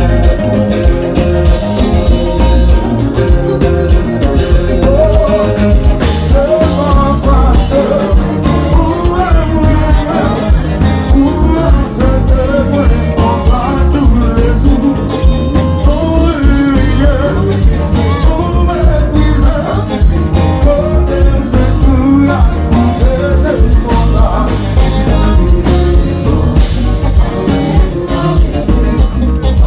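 Live konpa band playing loud: electric guitars, bass guitar and drums, with a lead singer on the microphone.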